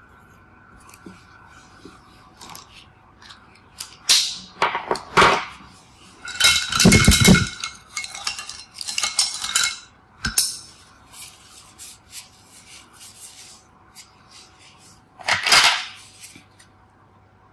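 Irregular clicks, clinks and knocks of art supplies being handled and set down on a desk, with a few louder clattering bursts and one dull knock about seven seconds in.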